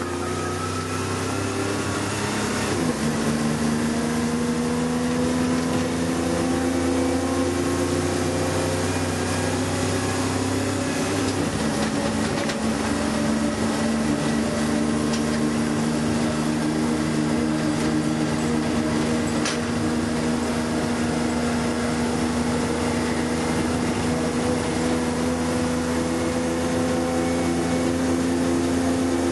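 Fire engine running under way, heard from inside the cab: a steady engine drone whose pitch climbs slowly, with changes in the note about 3 and 11 seconds in, like gear changes.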